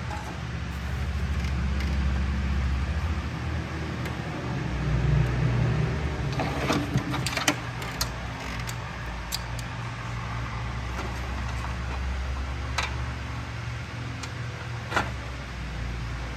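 A steady low rumble with scattered short clicks and light knocks as an aluminum fan shroud is handled and test-fitted against the radiator.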